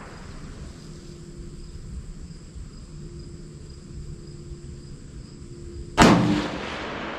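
A single rifle shot about six seconds in, sharp and loud, with a brief ringing tail. Before it there is only a quiet outdoor background.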